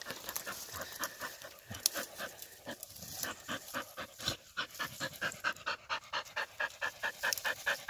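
Laika hunting dogs panting hard with their tongues out after the chase: fast, rhythmic breaths of about four to five a second, growing more regular and distinct about halfway through.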